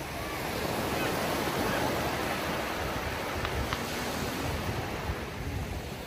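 Small sea waves washing up onto a sandy beach, the surf swelling about a second in and then easing back.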